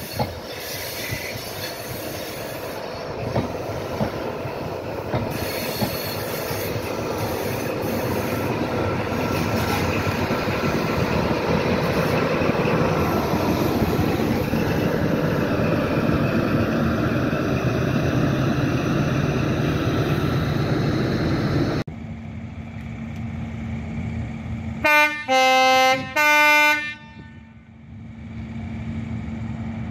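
An InterCity 125 passes close by, its Mark 3 coaches rumbling over the track and then Class 43 power car 43048 going past with its diesel engine running, growing louder as it comes. After a sudden cut, a steady engine hum, and an HST power car's horn sounds three short blasts a few seconds before the end.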